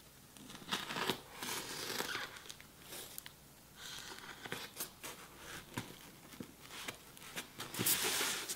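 Fingers picking at and peeling tape on a styrofoam box: irregular scratching and crackling handling noises, loudest near the end.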